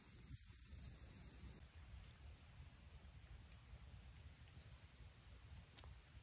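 Near silence: faint outdoor ambience with a steady, high-pitched insect drone that starts about one and a half seconds in.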